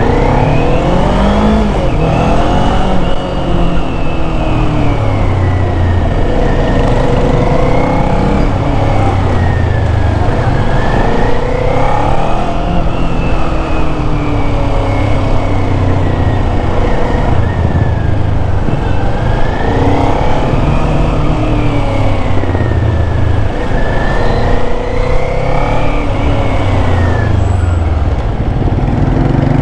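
Kawasaki Z400 parallel-twin engine through its stock muffler, heard from the rider's seat while riding. Its pitch rises and falls several times as the throttle opens and closes, over steady wind rush.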